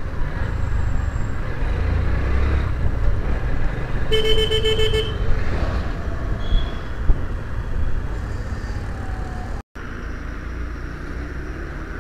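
Motorcycle riding through town traffic, with a steady rumble of engine and wind. A vehicle horn honks once, for about a second, about four seconds in. The sound cuts out briefly near the end.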